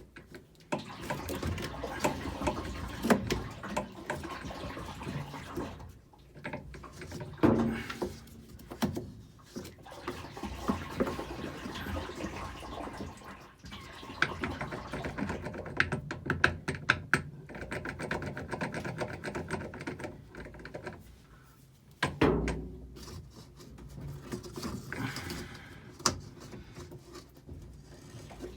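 GE Mabe washing machine running its wash cycle with a rattling, clicking noise from the motor, in spells of several seconds broken by short pauses. The noise comes from worn motor bearings that need replacing.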